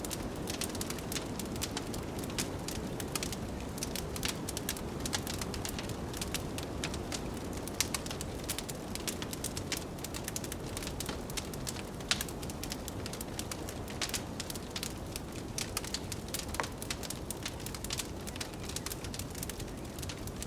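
Wood fire crackling with frequent sharp pops and snaps, over a steady low rush of blizzard wind.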